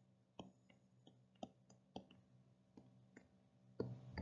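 Faint, scattered taps of a stylus on a drawing tablet while handwriting, about ten light clicks over a few seconds, against near silence. Near the end a louder, lower stretch with stronger taps sets in.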